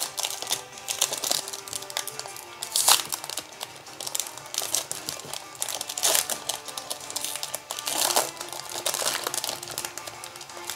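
Foil trading-card pack crinkling as it is torn open by hand and the cards are pulled out, with louder crackles about three, six and eight seconds in. Background music plays underneath.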